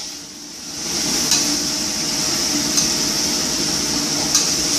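Pumpkin and mushrooms sizzling in hot oil in a pan, the hiss picking up about a second in, with three sharp knocks of a utensil against the pan as they are stirred.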